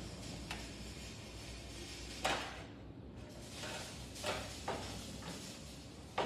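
A few scattered metal clunks and knocks from the clamp bar and bending beam of a magnetic sheet metal brake being handled, the loudest a couple of seconds in, with a sharp clack near the end.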